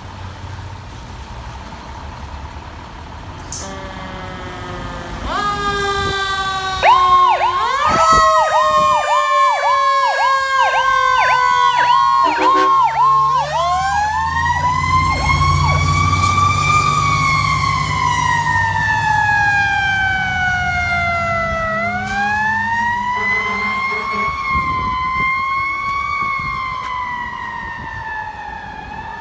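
Fire engine sirens: a Federal PowerCall electronic siren in a fast yelp, about two to three cycles a second, and a Federal Q2B mechanical siren winding up and slowly coasting down in long rising and falling wails, which take over in the second half. The truck's engine rumbles underneath.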